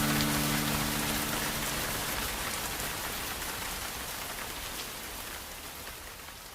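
Rain sound effect, an even patter of drops, fading out slowly as a track ends. The last held notes of the music die away at the very start.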